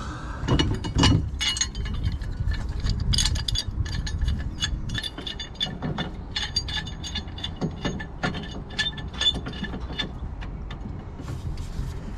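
Hand tools working on metal: many quick metallic clicks and clinks, over low knocking and handling noise.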